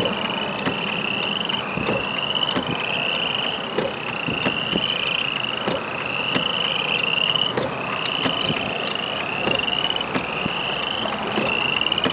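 A chorus of chorus frogs calling: rasping, slightly rising trills about half a second long, about two a second, at two slightly different pitches as frogs answer one another. Scattered sharp clicks and a low rumble sound underneath.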